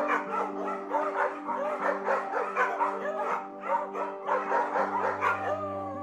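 Dog yapping and whining, short high calls several a second, over background music with held chords; a deep bass note joins the music near the end.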